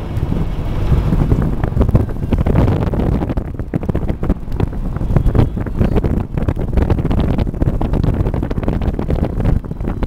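A vehicle driving along a snow-covered road, heard from inside: a loud, uneven low rumble from the tyres and engine, with rough buffeting on the microphone.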